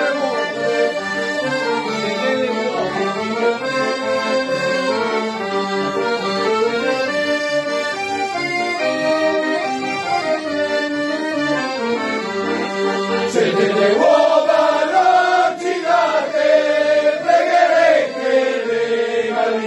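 Accordions playing a traditional folk tune, with men singing along. About 13 seconds in it jumps to a louder passage where the singing voices stand out over the accordions.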